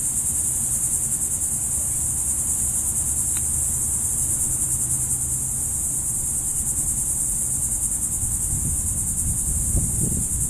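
Insect chorus: a continuous, high-pitched pulsing trill, with a low rumble underneath.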